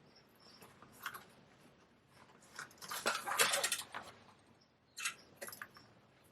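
Irregular scraping and rubbing of a straight razor being worked and handled on a Japanese natural whetstone. The loudest part is a rough scrape of about a second, three seconds in, and a short sharp scrape comes about five seconds in.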